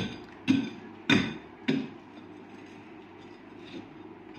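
A hand-held metal tool striking and chipping at an old brick wall: four sharp knocks, a little over half a second apart, in the first half, each with a short metallic ring.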